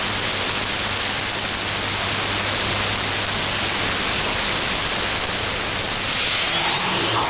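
Shortwave radio receiver hiss and static on an AM channel, a steady rushing noise with a faint low hum under it. A short rising whistle comes near the end.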